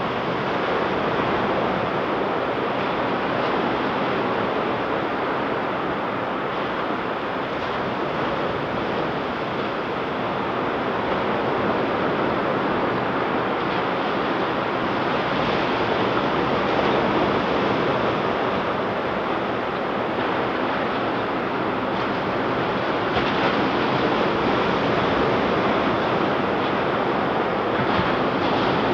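Ocean surf breaking on a beach: a steady, continuous rush of waves that swells and eases slowly, with some wind on the microphone.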